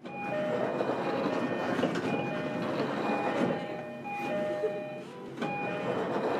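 Running noise aboard motor car MoHa 305-4 of a JR Kyushu 305 series EMU, which has Toshiba permanent-magnet-motor VVVF drive: a steady rumble of the train under way. Thin steady tones come and go about every second, and the sound dips briefly a little after five seconds in.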